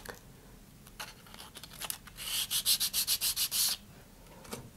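Hand-sanding the edge of a small cardstock piece: a burst of quick back-and-forth rasping strokes, about six a second, starting about two seconds in and lasting about a second and a half. A few light taps fall before and after it.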